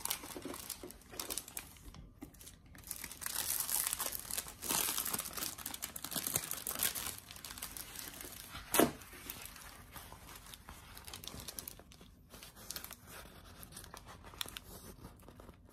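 Clear plastic cover film on a diamond painting canvas crinkling and crackling under a hand as the canvas is handled, with one sharper crackle a little past halfway.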